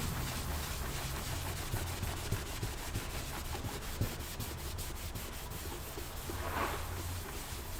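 A cloth rubbing and wiping over the casing of an HP Pavilion Wave desktop: a continuous scrubbing rub with fine scratchy ticks, over a low steady hum.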